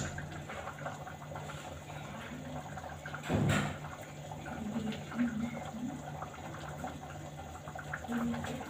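Pot of stew simmering on a gas cooker, a low steady bubbling and hiss. A single short clatter comes about three and a half seconds in.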